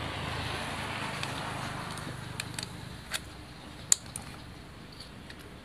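A handful of short, sharp metal clicks from the rotary hook assembly of an old Singer sewing machine being handled by hand, the loudest about four seconds in. A steady background hiss fades away over the first half.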